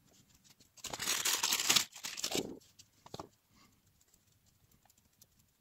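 A clear plastic bag crinkling in the hands for about two seconds, fading out, followed by a couple of faint clicks.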